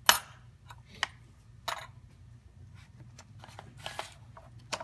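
A few sharp clicks and short rustles, about five, from handling metal dissecting tools and a specimen with gloved hands on a plastic dissecting tray. The loudest click comes right at the start.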